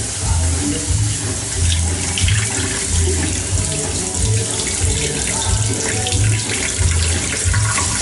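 Water running and splashing steadily as trays of oak seedlings are soaked and their excess water drained off. Background music with a low, regular beat plays underneath.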